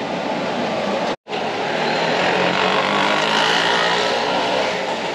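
Busy street traffic: a steady wash of vehicle engines and road noise, cut off completely for a moment about a second in.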